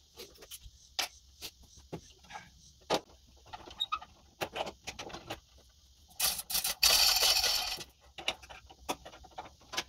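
Scattered light metallic clinks and knocks as the pins holding a Snapper 360z zero-turn mower's deck are worked loose. About six seconds in comes a louder rattle lasting about a second and a half, as the overhead hoist chain is handled.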